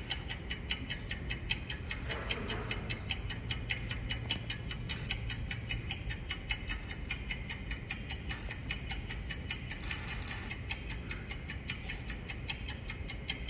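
A clock ticking quickly and evenly, part of a theatrical sound cue, with brief bright jingling flourishes about five, eight and ten seconds in.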